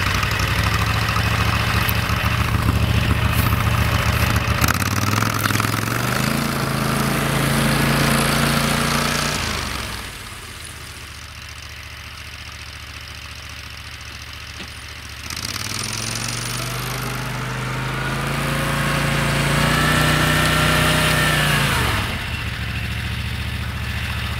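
Homemade SM-002 snowmobile with a Loncin 30 hp engine, running under load as it drives off through the snow. The revs rise, the sound drops off to a fainter level, then grows louder and climbs again before falling back to idle about 22 seconds in.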